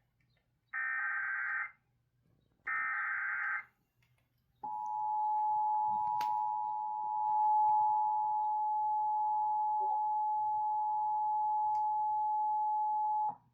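Emergency Alert System tones broadcast over AM radio for a severe thunderstorm warning: two one-second bursts of SAME header data screech, then the two-tone attention signal, a steady dual tone held for about nine seconds that cuts off sharply.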